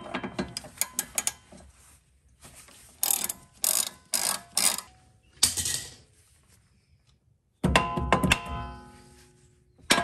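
Ratchet wrench clicking in short strokes as the lock nut on the upper control arm's ball joint is run down. Then two hard metal-on-metal blows that ring on, one about two seconds before the end and one at the end.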